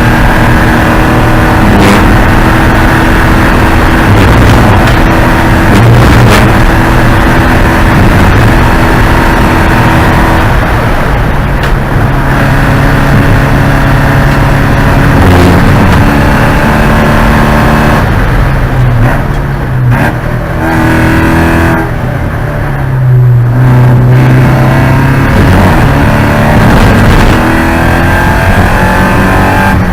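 Porsche 944 Spec race car's four-cylinder engine running hard, its pitch rising and falling with the revs, easing off to a lower, quieter note about two-thirds of the way through before climbing again.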